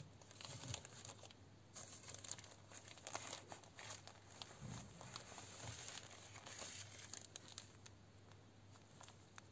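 Faint crinkling and rustling of soil-filled plastic zip-lock bags being picked up and handled, in irregular small crackles.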